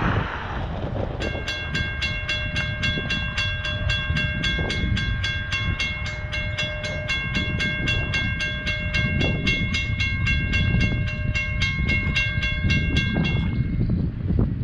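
Railroad grade-crossing bell ringing in a quick, even run of strikes, warning of an approaching train while the signals flash and the gate arm lowers. It starts about a second in and stops about a second before the end.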